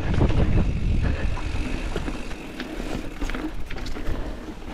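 Wind rumbling on the microphone over a mountain bike rolling along a trail, with a few light clicks and rattles.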